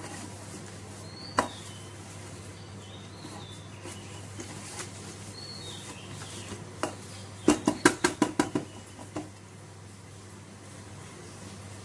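Hands working a chicken piece in corn flour in a glass bowl, with a few separate knocks and then a quick run of about eight knocks against the bowl, about two-thirds of the way in.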